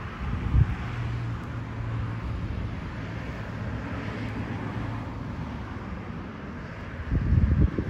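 A vehicle's low engine hum, steady for a few seconds and then fading, over a low outdoor rumble. Wind buffets the microphone in loud low gusts near the end.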